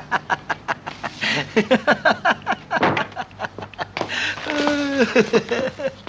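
A man laughing heartily in a quick run of short 'ha-ha' pulses, with voices coming in about two-thirds of the way through.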